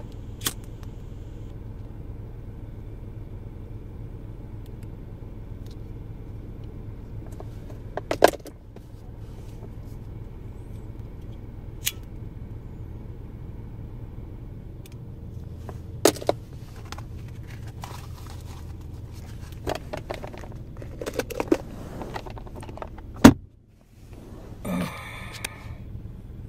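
Disposable lighters flicked several times: sharp, scattered clicks of the spark wheel and lid, over a steady low hum inside the car cabin. A short pitched sound comes near the end.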